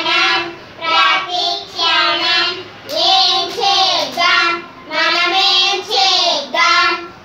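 Young girls singing a Telugu alphabet song together, unaccompanied, in short phrases of about a second each with brief breaths between them.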